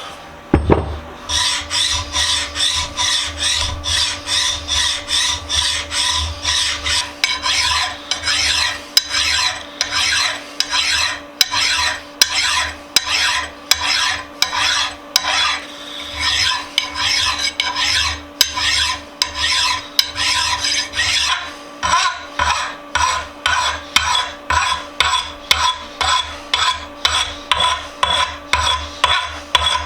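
Hand file rasping back and forth across the jaws of a Dawn bench vise in steady, even strokes, about two a second, dressing the tops of the jaws.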